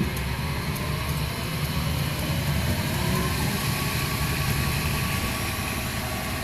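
1959 Hardinge DV-59 tool room lathe running under power, its 1 hp three-phase motor and spindle drive humming steadily, with a faint whine that drifts gently up and down in pitch.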